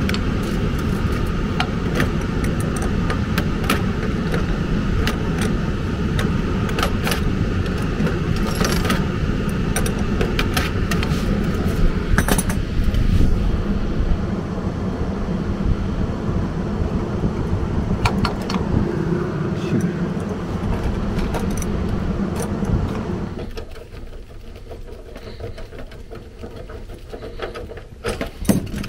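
Metallic clinks and rattles of hands working on copper refrigerant lines and the thermal expansion valve fittings. A steady low rumble runs underneath and drops away suddenly about three-quarters of the way through.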